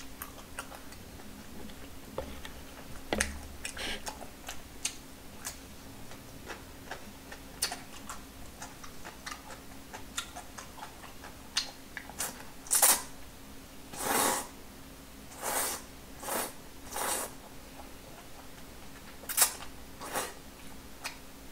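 Close-up eating sounds: small clicks of chopsticks and chewing, then a run of several short slurps of udon noodles in the second half.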